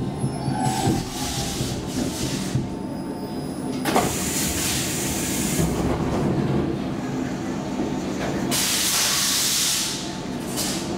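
Stockholm Metro C14 subway car stopping at a station: compressed air hisses out in several short bursts, with a longer burst near the end and a sharp click about four seconds in, over the carriage's steady low hum.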